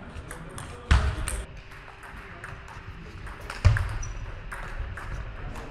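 Table tennis rally: the ball clicking off the bats and the table in quick succession. Two louder thuds stand out, about a second in and again near four seconds.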